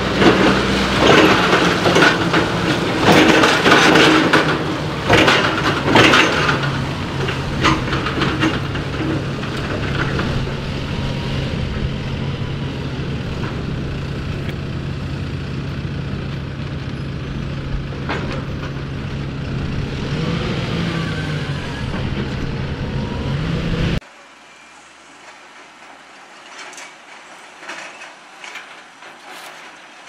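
Forklift running with a steady engine hum, with clanks and metallic rattles during the first several seconds. About 24 seconds in the sound cuts off to a much quieter stretch of faint clicks and knocks.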